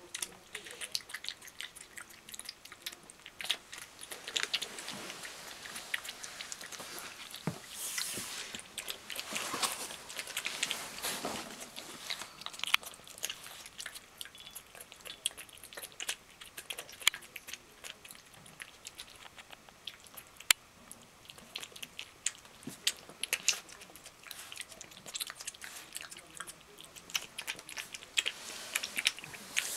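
A pet animal chewing food from a bowl, with many small, irregular wet clicks of its mouth.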